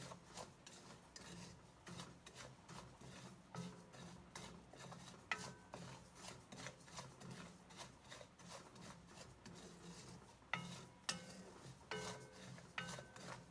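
Wooden spatula stirring and scraping coarse salt around a dry stainless steel pan, as the salt is dry-roasted: a steady gritty rasp of crystals on metal. Now and then the spatula knocks the pan, and the pan rings briefly.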